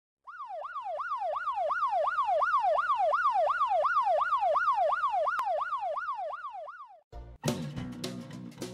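Police siren in a rapid rising-and-falling yelp, about three sweeps a second, fading out about seven seconds in; music starts right after.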